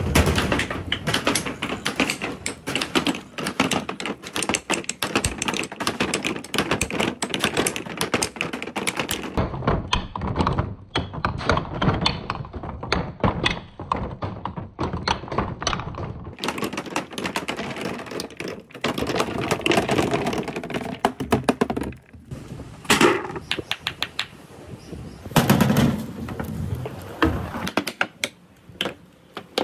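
Large glass balls rolling down a wooden marble-run board: a rolling rumble with many quick clacks and knocks as they strike the aluminium bars and wooden side rails.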